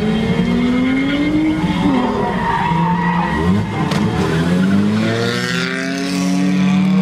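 Nissan pickup truck engine revving up and down while drifting, heard inside the cab, with the tyres squealing as the truck slides sideways. The engine note dips about three and a half seconds in, then climbs again.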